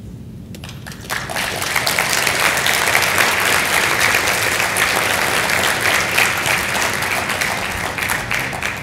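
Audience applauding at the close of a talk, starting about a second in and dying away near the end.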